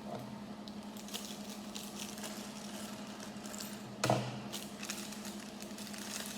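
Light clicks and rustles of Lego pieces and their plastic bag being handled, over a steady low hum, with one short bump about four seconds in.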